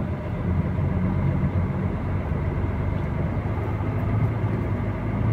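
Truck's diesel engine running steadily at low speed, heard from inside the cab as a constant low drone.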